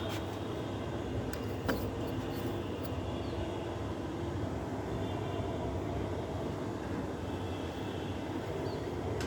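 Split air conditioner's outdoor unit running with a steady mechanical hum, with a few light clicks about one to three seconds in.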